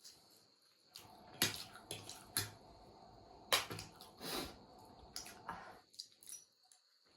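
Close-up eating sounds: wet chewing and mouth smacks mixed with short, sharp clicks, as of utensils against a bowl, coming irregularly.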